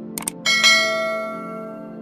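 Subscribe-animation sound effects: two quick mouse clicks, then a bright notification-bell ding that rings and fades over about a second, over steady background music.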